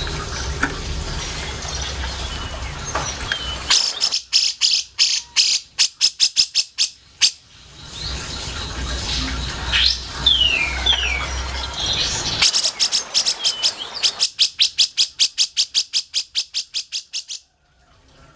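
Cucak jenggot (brown-cheeked bulbul) singing: two long runs of rapid, evenly repeated sharp chattering notes, with short gliding whistles between them, over a low hum in the recording.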